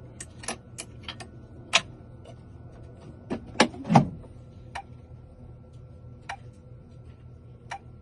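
Irregular sharp clicks and knocks, about a dozen, the loudest a few seconds in, as a key blank is handled and clamped in a key-cutting machine between cuts of a door key. A faint steady hum runs underneath.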